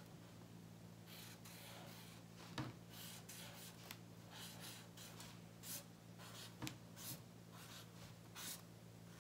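Felt-tip marker writing on paper: faint short strokes, with a couple of small knocks about two and a half and six and a half seconds in.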